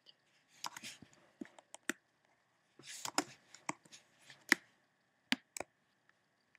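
Scattered sharp clicks of a computer mouse and keyboard, with a few short, softer rustles between them.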